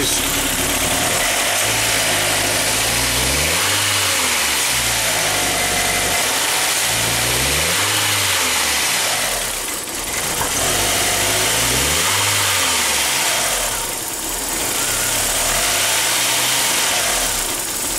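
1999 VW Passat's 1.8-litre turbo four-cylinder engine running cold, its speed rising and falling several times. The engine is missing with a light knocking, a fault that turned out to be a failing mass air flow sensor.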